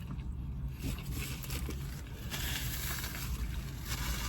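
Steady low hum of a car idling, heard inside the cabin, with chewing and rustling noises; a hiss swells for about a second and a half in the middle.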